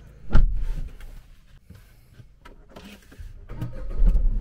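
A single heavy thump inside a car cabin, then a low rumble from the car that builds near the end.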